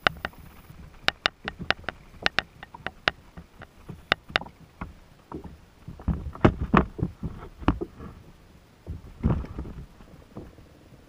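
Fishing rod and reel on a kayak while a fish is fought and landed: a run of sharp, irregular clicks for the first few seconds, then heavier knocks and thumps against the kayak from about six to eight seconds in and once more near nine seconds.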